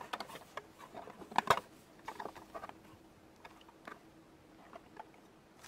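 Small hard-plastic clicks and taps from a toy castle playset being handled, its rotating front door being opened and closed. The sharpest clicks come about a second and a half in and around two seconds, then only faint taps.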